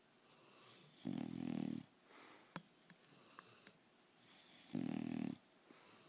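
English Bulldog snoring in its sleep: two loud, low snores about four seconds apart, each building up from a softer breath.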